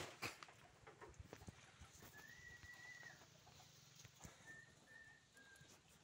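Near silence: a sharp click at the very start, then faint, high whistled bird notes, one held about a second and three short ones after it.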